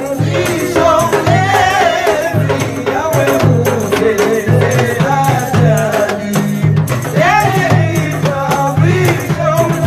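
Men singing together, one voice carried over a microphone, to a steady rhythm of handheld frame drums with a jingling rattle.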